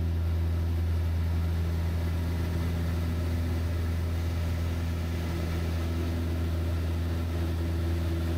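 Van's RV-7 light aircraft's piston engine and propeller droning steadily in flight, a constant low hum with little change in pitch or loudness.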